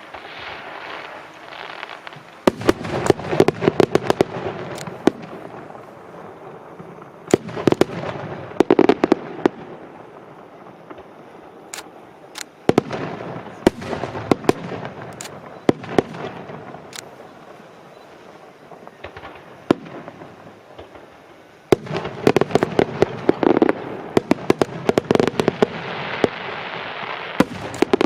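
Aerial fireworks shells bursting in volleys: four rapid clusters of sharp bangs, with crackling and rumble between them.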